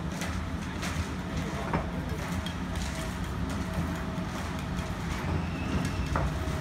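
Building-site noise: a steady low rumble under scattered sharp taps and knocks, the sound of bricks and trowels as bricklayers lay a wall.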